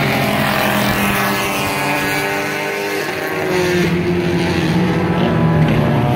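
Bomber-class stock cars racing around a short oval, their engines running hard. The engine note slides down as cars go past, then climbs again after about four seconds.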